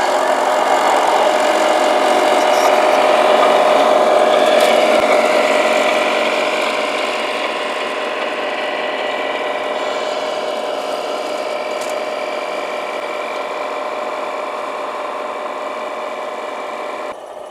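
Radio-controlled model vehicle's electric motor and gears whining steadily, easing off slightly partway through and cutting off suddenly near the end.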